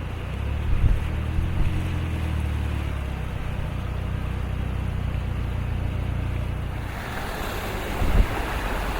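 A vehicle engine runs with a low, steady hum amid storm wind and water noise. About seven seconds in, the hum fades and a louder rushing hiss of wind and splashing water takes over, with gusts thumping on the microphone.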